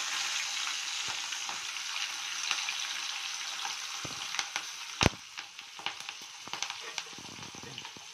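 Green chillies sizzling in hot oil in a steel kadai with mustard seeds, peanuts and chana dal: a steady frying hiss dotted with small crackling pops, easing a little toward the end. One sharp click about five seconds in.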